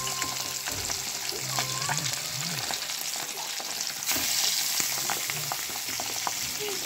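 Pabda fish coated in salt and turmeric sizzling as they shallow-fry in oil in a pan, a steady hiss with small pops. About four seconds in, as the fish are moved in the pan, the sizzle grows louder.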